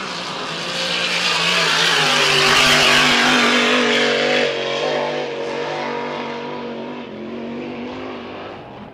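Grand Prix class racing hydroplane's engine running hard at speed, with a rushing hiss of spray. It swells to its loudest about three seconds in, then fades as the boat moves away.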